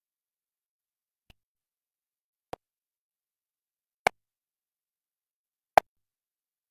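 Four sharp, isolated clicks over dead silence, about one and a half seconds apart, each louder than the one before.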